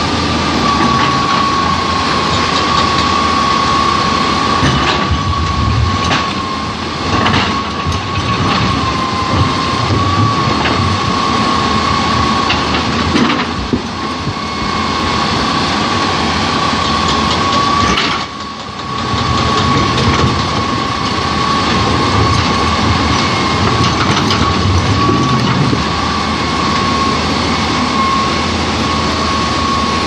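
Hitachi EX200 crawler excavator's diesel engine running as it works, with a steady high whine from the machine, over the rush of fast river rapids. The level dips briefly a few times.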